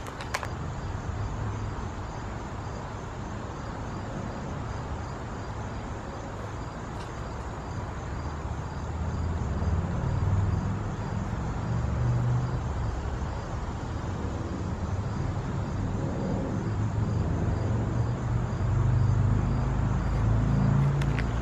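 Outdoor ambience: a steady low rumble like distant road traffic, growing louder about halfway through, with faint insect chirping.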